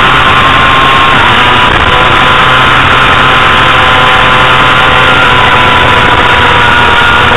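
Honda CBR250RR's inline-four engine running at high revs under race load, heard from the bike's onboard camera with heavy wind rush. The engine note holds steady, dips slightly about a second in, and shifts up near the end.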